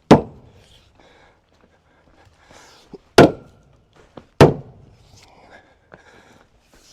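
Three heavy blows on a timber frame saw bunk with dovetailed tie beams, each a sharp knock that dies away quickly: one at the start, one about three seconds later and one a second after that, striking the wood to test the strength of the dovetail joints.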